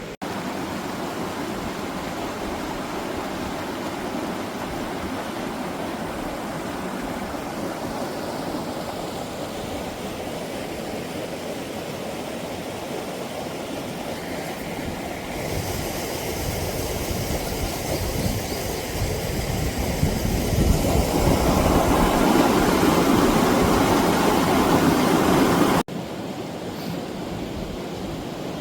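Mountain stream rushing over rocks, a steady rush of water that grows louder about fifteen seconds in and drops back suddenly near the end.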